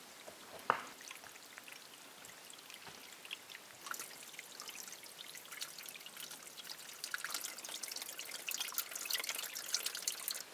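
Spring water trickling and splashing among rocks into a plastic bottle held under the flow, growing louder from about four seconds in. A single sharp click comes under a second in.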